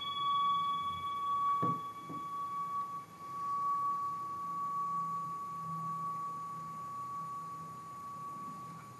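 Metal singing bowl ringing on after being rubbed around the rim with a wooden mallet: one steady pure tone that wavers slightly in loudness and slowly fades.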